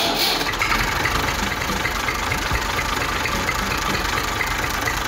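Motorised DIY mini tractor driving along, its motor running steadily with a faint repeating high tick.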